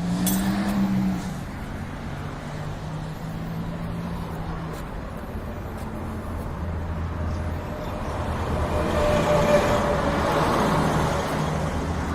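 Passenger car engine running, growing louder about nine seconds in and easing off near the end.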